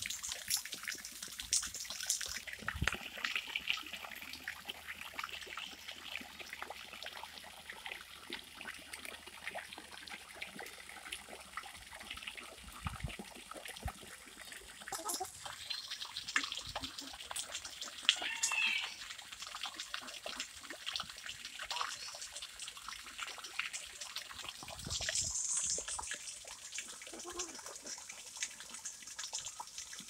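Small fountain jets splashing and trickling steadily into a pond.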